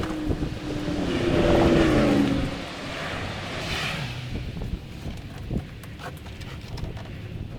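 A car's headliner panel being manoeuvred out of the cabin: rustling and scraping of the fabric-covered board against the interior, with scattered knocks. A short drawn-out pitched sound comes about a second in.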